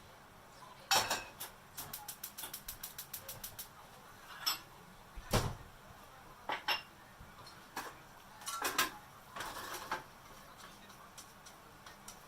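Kitchen handling sounds: cookware and utensils knocking and clattering now and then, with a fast run of small clicks, about eight a second, lasting nearly two seconds near the start.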